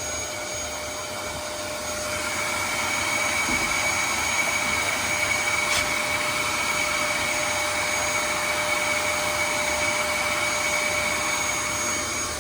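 Vacuum cleaner running with a steady whine, a little louder from about two seconds in.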